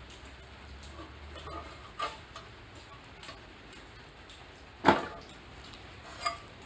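Handling noise on a cutoff saw's metal wheel guard: scattered light clicks and knocks, with one sharper knock about five seconds in and a smaller one near the end.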